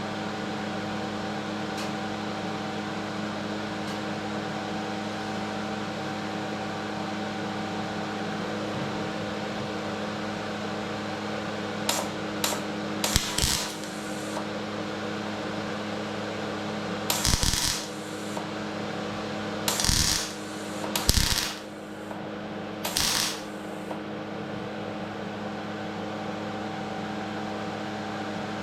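MIG welder putting short plug welds into sheet metal: about five brief spells of arc crackle, each under a second, starting about twelve seconds in, over a steady electrical hum.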